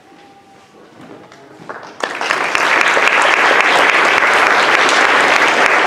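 Audience applause that breaks out suddenly about two seconds in after a quiet moment, then carries on as dense, steady clapping from many hands.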